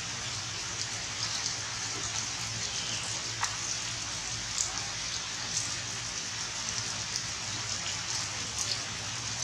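Steady rain falling, an even hiss with scattered sharper drop ticks.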